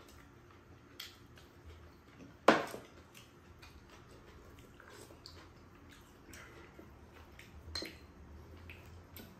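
Spoons clinking and scraping against bowls as two people eat, a few scattered clicks with one sharp, loud clink about two and a half seconds in.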